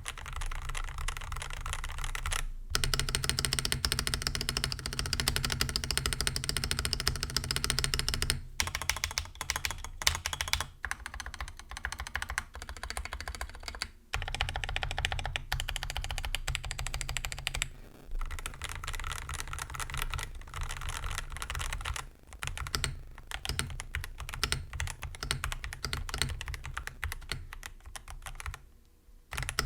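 Typing test on a mechanical keyboard fitted with Akko Dracula linear switches (POK stem and top housing, nylon bottom housing): fast, continuous keystrokes with a deep, thocky sound, broken by short pauses now and then.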